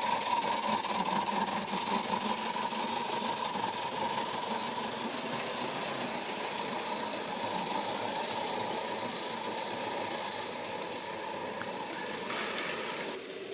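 Two 38 class steam locomotives running steadily with a passenger train, a continuous mechanical working sound that eases slightly in loudness and changes abruptly near the end.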